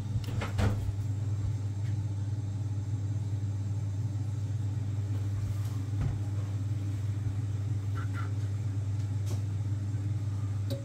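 Ideal Mini C24 boiler's circulating pump running on a hot-water demand, a steady low mains hum with a few light clicks, cutting off abruptly at the end.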